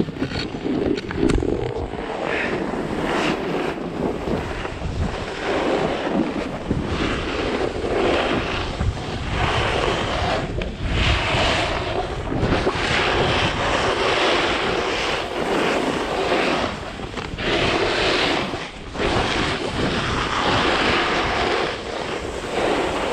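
Snowboard sliding down a snow slope, its edges scraping and hissing over the snow in surges that swell and ease every second or two, with wind rushing over the action camera's microphone.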